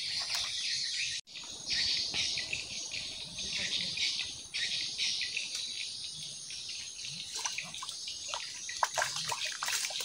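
Insects chirring steadily in the surrounding swamp vegetation, with a brief break about a second in. A few short ticks come near the end.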